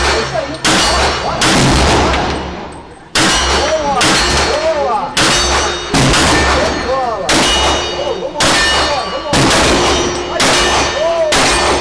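Handgun shots fired in a string, about a dozen sharp cracks roughly a second apart, each trailed by a ringing echo.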